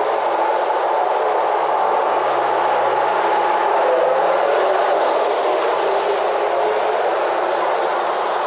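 Steady street traffic noise: cars passing over a wet road, making a continuous even rush.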